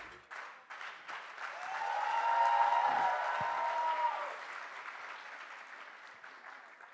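Audience applauding, swelling about two seconds in with a cheer over it, then fading away.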